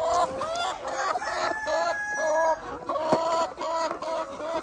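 Hens clucking: a run of drawn-out, arched calls two or three times a second, from a laying hen complaining at being disturbed on her nest. A single sharp click comes a little after three seconds in.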